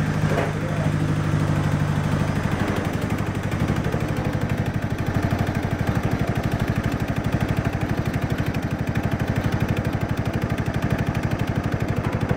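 Husqvarna riding mower engine running steadily while the mower is driven, with an even, rapid firing beat. A humming tone heard at the start fades away within the first few seconds.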